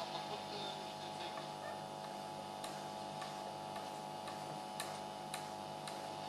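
Orion AR205 Orionette valve radio being tuned between stations: steady hiss and hum from its speaker, with a few sharp crackles in the second half, the loudest two close together about five seconds in.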